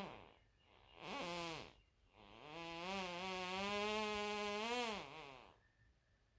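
Two farts with a clear pitch: a short one about a second in that drops in pitch, then a long one of about three seconds that holds a steady pitch and wavers near the end.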